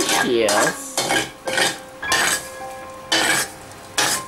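Metal ladle scraping food off a ceramic plate into a wok, clinking against the plate and pan in about six separate short strokes.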